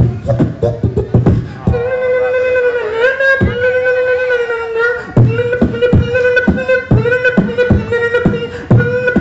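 Beatboxing into a handheld microphone: a fast run of mouth-made kick and snare hits. About a second and a half in it gives way to a steady held vocal tone, and about halfway through the percussive hits come back over that tone.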